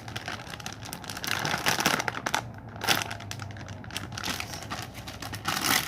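Crinkly packaging of a squishy toy rustling in irregular bursts as it is handled and unwrapped.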